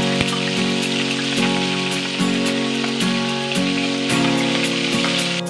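Hot cooking oil with bay leaves sizzling steadily in a wok, with background music of sustained chords playing over it.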